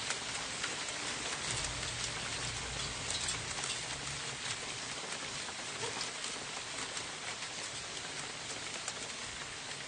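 Small hailstones falling on a wet wooden deck: a steady hiss of many small ticking impacts. A low rumble runs under it from about one and a half to four seconds in.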